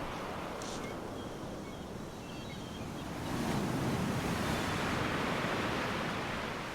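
Waves washing ashore, one swell building and breaking about three seconds in.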